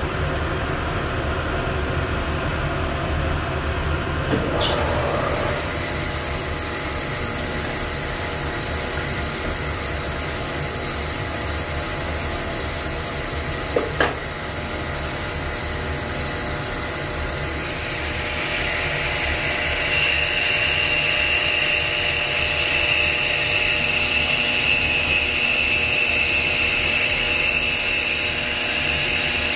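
Jet 18-inch 3 hp bandsaw running steadily, with two brief knocks. Some 18–20 seconds in the sound gets louder and a steady high whine sets in as the 1/4-inch Timberwolf blade starts ripping curly maple.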